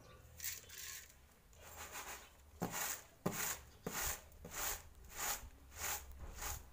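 Flattened rice (atukulu) being winnowed in a woven winnowing tray: the grains are tossed and land back with a rhythmic swishing rustle, about one and a half swishes a second, with a few sharper taps near the middle. The tossing shakes the loose husk off the rice.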